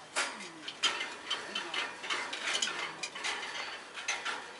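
African grey parrot making a run of irregular sharp clicking sounds, about three or four a second, with a few faint low gliding notes between them.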